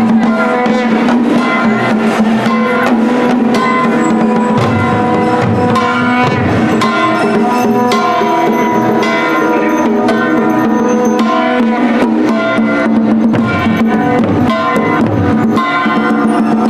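Kirtan music: drums and ringing hand cymbals (karatalas) struck in a steady rhythm over a held drone.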